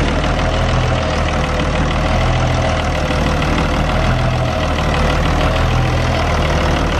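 Fiat 1000 Super DT tractor's six-cylinder diesel engine idling steadily, with an even, rapid diesel clatter.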